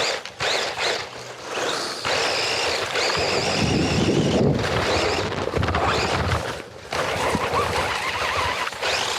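RC car driving hard over dirt, heard from a camera mounted on the car: its motor whines, rising and falling in pitch, over a steady rush of tyre and gravel noise, with short dips where it eases off.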